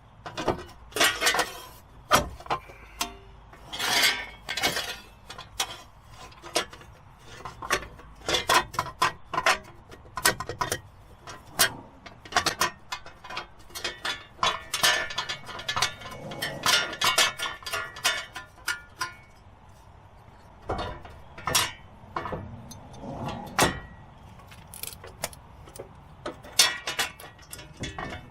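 Metal parts and hand tools clinking and knocking irregularly, some clinks ringing briefly, as work goes on at a car's front wheel hub.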